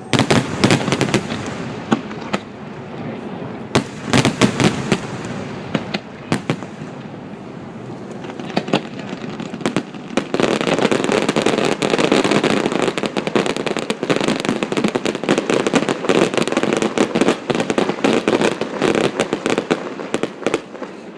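Aerial fireworks going off: clusters of sharp bangs near the start and again around four and six seconds in, then from about ten seconds in a dense, continuous barrage of pops and crackles.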